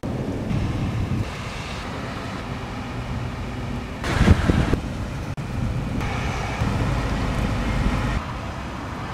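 Thunderstorm noise of wind and rain, with a short loud crack about four seconds in.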